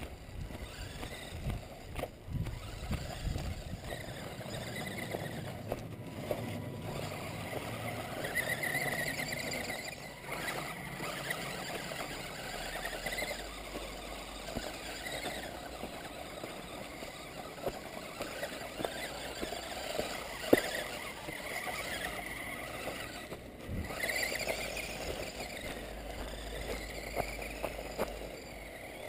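Small radio-controlled truck's electric motor and gears whining, the pitch rising and falling again and again as it speeds up and slows. A low rumble runs underneath, with a few clicks.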